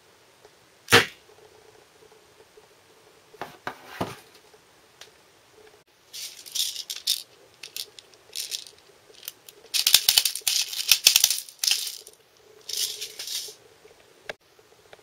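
Handling of a homemade wooden rifle-style slingshot: a sharp snap about a second in, a few clicks, then several bursts of rattling and clicking.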